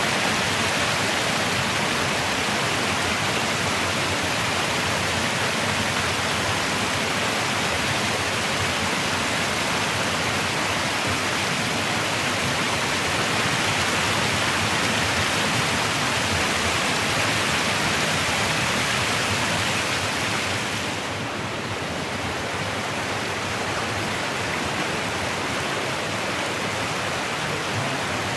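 Rushing water of a mountain stream and its small waterfalls: a steady, even rush that gets a little quieter about two-thirds of the way through.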